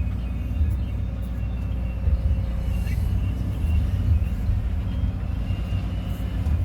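Kobelco 320 excavator's diesel engine running steadily with a low rumble.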